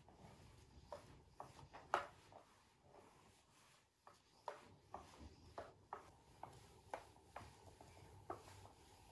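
Faint, irregular light clicks and taps in a quiet small room, about fifteen of them spread across a few seconds.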